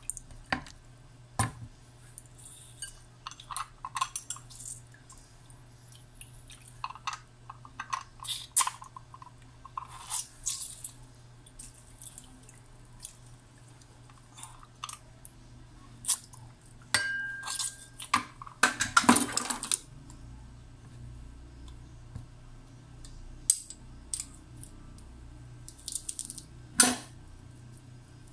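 Yellow plastic hand-held lemon squeezer worked over a ceramic bowl: scattered plastic clicks and clatter with lemon juice dripping into the bowl, the loudest clatter about two-thirds through.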